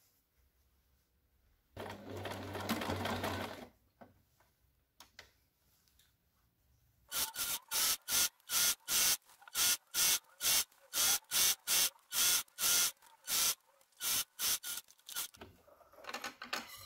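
Electric domestic sewing machine stitching: one run of about two seconds, then a long string of short stitching bursts at roughly two per second that taper off near the end.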